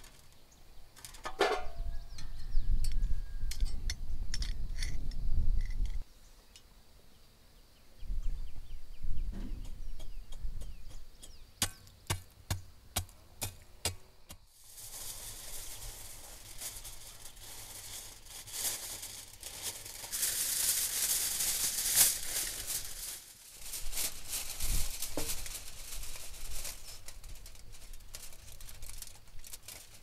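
Aluminium foil crackling and rustling as a sheet is wrapped around a meat rack in a cast-iron pot; it starts about halfway in. Before it, a run of sharp metal clicks, and in the first few seconds low rumbling noise.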